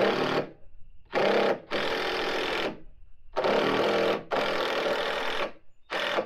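Cordless impact driver driving screws into the wooden truss framing, running in about six bursts of half a second to a second each with short pauses between them.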